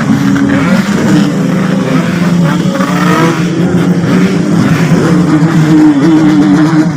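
Yamaha RX-King two-stroke motorcycle engines revving loudly together, the pitch wavering up and down.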